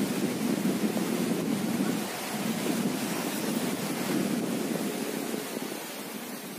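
Sea surf washing on the beach, with wind buffeting the microphone; the noise eases off near the end.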